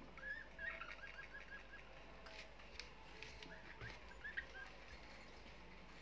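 Budgerigar chirping softly: a quick run of short chirps in the first two seconds and a few more around the middle, with some light ticks in between.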